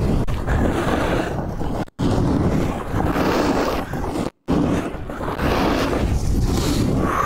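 Wind buffeting the action-camera microphone of a snowboarder riding downhill, a loud, heavy rumbling rush. The sound cuts out briefly twice, about two seconds and four and a half seconds in.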